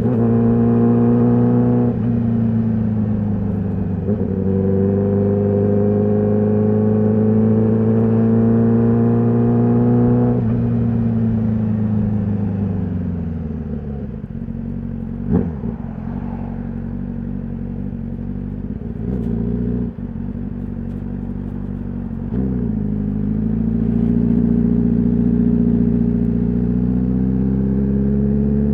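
Honda CBR1000RR-R SP's inline-four engine through its stock exhaust, ridden under load. The revs step down a couple of times near the start as it quickshifts up, then climb steadily. After about ten seconds the revs fall away off the throttle, with a few sharp clicks, and they climb again after about 22 seconds.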